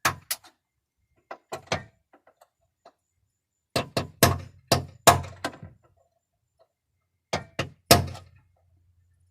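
Sharp metal knocks in irregular groups, a dozen or so in all: tapping to drive a drilled-out aluminum rivet remnant through the door-handle mounting hole into the car door.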